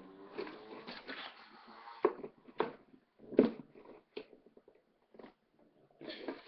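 Small plastic chip packets being handled: crinkling and several sharp knocks, the loudest about two and about three and a half seconds in.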